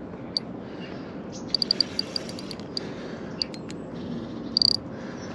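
Fixed-spool fishing reel's drag clicking in short irregular runs as a hooked carp pulls line off against it: scattered single clicks, a quick run about a second and a half in, and a brief fast burst near the end.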